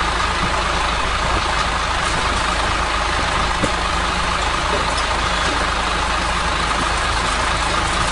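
Diesel engine of a multi-axle mobile crane truck running steadily as the crane truck drives slowly past.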